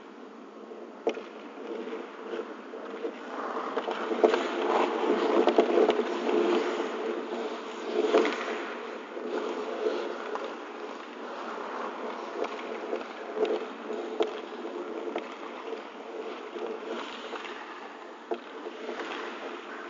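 Ice hockey play: skates scraping and carving on the ice, loudest for a few seconds in the first half, with a few sharp clacks of sticks and puck over a steady buzzing hum.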